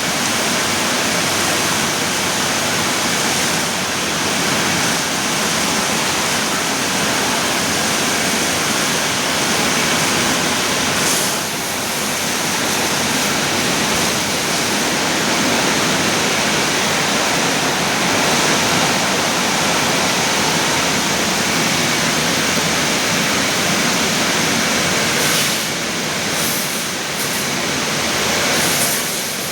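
Automatic brush car-wash machine running: a steady rush of spraying water, dipping briefly about eleven seconds in and again near the end.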